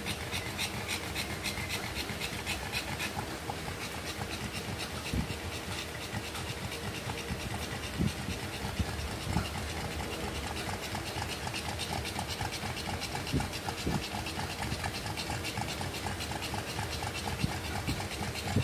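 Pug panting rapidly and steadily while in labour, with a few brief soft knocks from movement.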